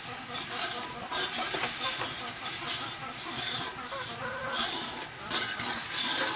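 Hot oil sizzling in an aluminium wok as food fries, the hiss swelling in irregular surges every second or so.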